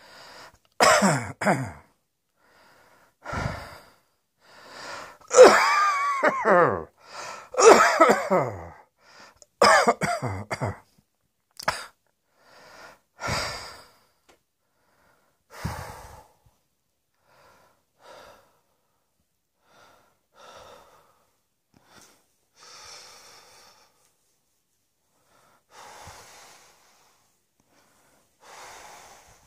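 A person coughing in repeated loud fits, with breaths drawn in between. After about fourteen seconds it eases to fainter, spaced-out coughs and breaths.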